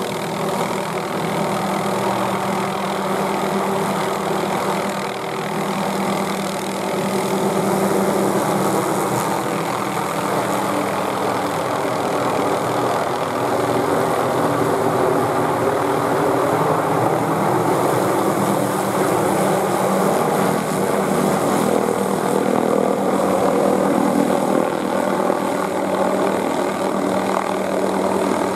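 Hughes 500E (MD369E) helicopter hovering low and close overhead: the steady drone of its turboshaft engine and five-blade main rotor.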